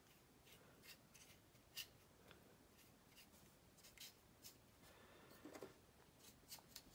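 Near silence with faint scattered ticks and light scratches: a fine paintbrush dabbing and stroking wash onto a plastic model aircraft fuselage, and the plastic part being handled.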